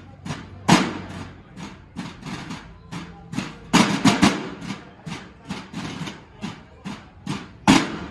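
Marching snare drums of a drum and bugle corps playing a cadence: a steady run of even drum strokes, with much louder accented hits about a second in, a cluster of them around the middle, and one more near the end.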